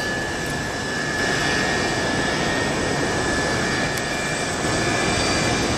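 Jet airliner's engines running as it passes, a steady rush of noise with a thin, high steady whine.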